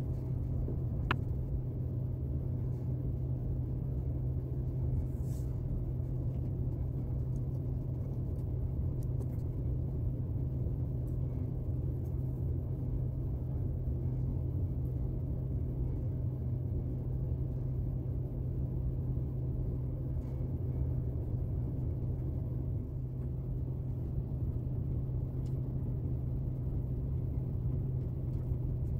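A steady low hum, with a few faint small clicks of tweezers and a screwdriver on a brass clock movement plate; the sharpest click comes about a second in.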